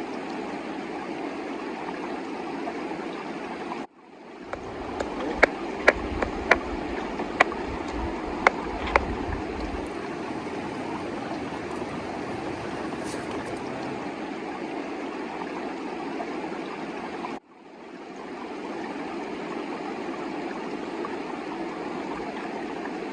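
Steady rush of a mountain river. Between about five and nine seconds in there are about seven sharp clicks, with a low rumble alongside. The water sound drops out abruptly twice and fades back in.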